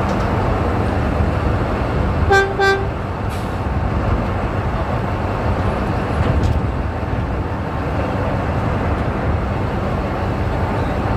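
Mining haul truck's diesel engine running steadily at idle, with two short horn toots a little over two seconds in.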